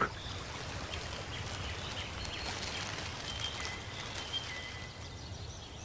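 Soft, steady rainforest ambience of light rain falling on foliage, with a few faint, thin, high-pitched calls.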